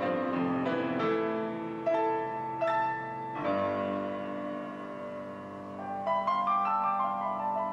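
Background piano music: a slow melody of single notes over held chords, with a short run of rising notes about six seconds in.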